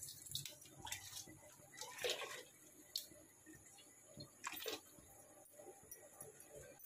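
Rice poured from a steel bowl into a pot of boiling, spiced water: faint bubbling and splashing, with a few short splashes as it goes in.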